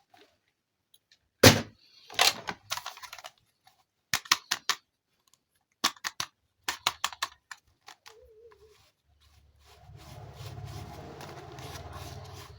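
Hard plastic toy parts and packaging clicking and knocking as they are handled, the loudest a sharp knock about a second and a half in. Near the end a battery-powered toy switches on and runs with a steady buzzing hum.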